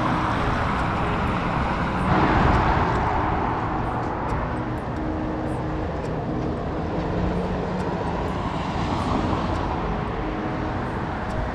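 Steady car and road-traffic noise, an even rumble of engines and tyres with no single event standing out.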